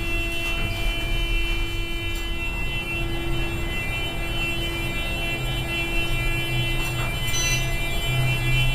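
Otis elevator car travelling down between floors, heard from inside the car: a steady low motor hum and a steady whine, the hum growing stronger in the second half, with a short click about seven seconds in.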